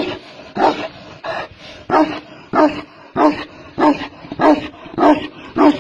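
Tibetan mastiff barking in a steady run of about ten barks, roughly three every two seconds, cutting off suddenly near the end.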